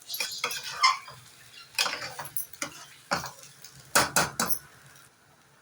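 A cooking spoon scraping and knocking against a pan in irregular strokes while stirring eggs scrambled with onion and spices, with a brief flurry of knocks about four seconds in.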